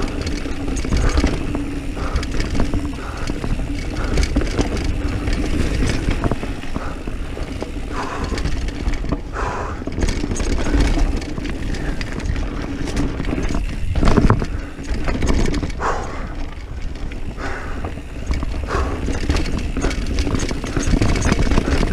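Diamondback Mission 1 mountain bike descending a dirt trail at speed: steady wind rush on the camera's microphone, tyres running over dirt, and the chain and frame rattling over bumps, with a hard knock about two-thirds of the way through.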